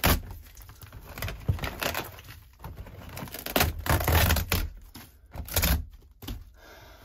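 Water-rotted plywood and foam insulation being ripped out of a truck camper wall by hand: irregular crunching, cracking and tearing, the loudest cluster around the middle.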